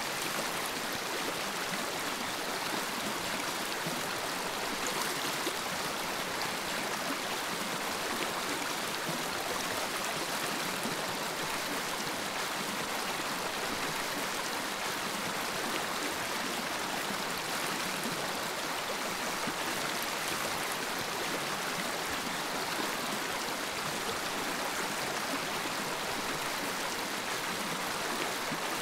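Glass lampworking bench torch flame hissing steadily.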